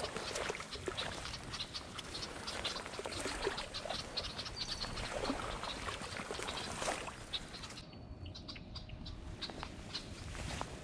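Cattail leaves and stalks rustling and brushing as they are pushed aside, a dense run of short crackles and swishes that thins out about eight seconds in.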